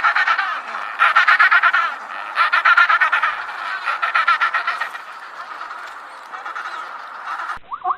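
A flock of birds calling noisily: rapid squawking and honking in four loud bouts of about a second each, then quieter calling. Near the end it cuts abruptly to a different, evenly repeating animal call.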